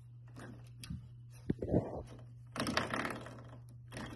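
Coil-spring doorstop being pawed and mouthed by a puppy: a few sharp clicks, then a louder buzzing rattle of the spring about two and a half seconds in.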